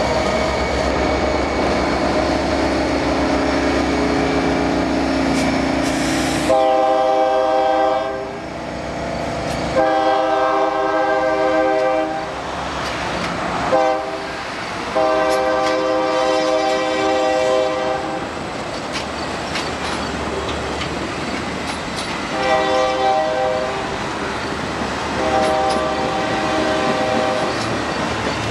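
BNSF diesel locomotives pass close with engines running, then their multi-tone air horn sounds a grade-crossing signal (long, long, short, long) as they move away, followed by two more blasts near the end. Passenger car wheels rumble and clatter on the rails underneath.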